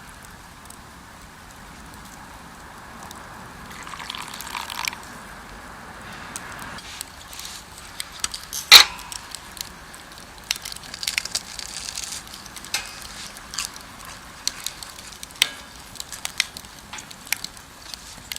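Wood campfire crackling and popping over a steady hiss, with one loud sharp pop about nine seconds in and the pops coming more often after that.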